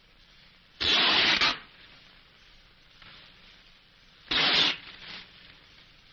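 Paper crinkled in the hands, rustling loudly in two bursts, about a second in and again around four seconds in, with a short softer rustle just after the second. A steady faint hiss runs under it all.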